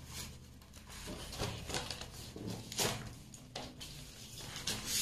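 Cardboard sleeves and paper packaging rustling and scraping as LCD writing pads are slid out of them, in short scattered strokes with light knocks.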